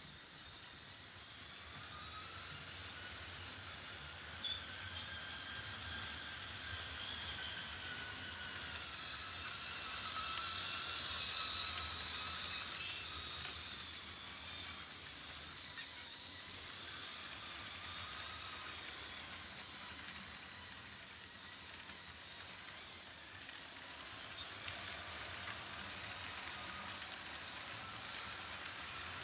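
HO-scale model train running past: the motors and gears of two model GP40 diesel locomotives whining with a high hiss, over wheels rolling on the track. It grows louder to a peak about ten seconds in as the locomotives come closest, then settles to a steadier, quieter rolling as the freight cars go by.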